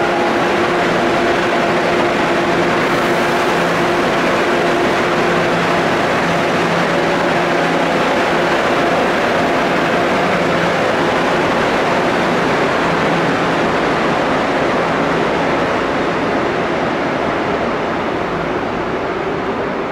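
Seoul Subway Line 2 train pulling out of the station: a steady, loud rumble of wheels on rail with a motor hum, which slowly fades over the last few seconds.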